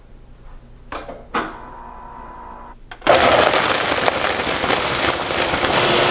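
Countertop blender with a large plastic pitcher blending a shake. After a quiet start with a couple of knocks, the motor starts suddenly about three seconds in and runs loud and steady.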